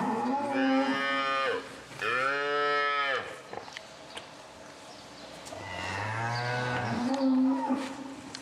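Holstein cow mooing three times, the third call the longest: a mother cow lowing over her newborn calf.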